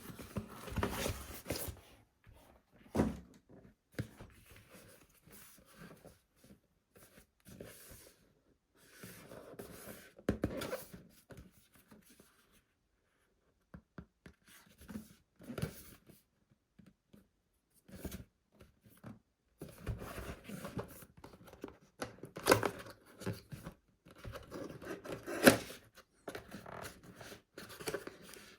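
Handling noises: irregular rustling, scraping and sharp clicks and knocks, as of packaging and small plastic parts being handled, with short quiet gaps between.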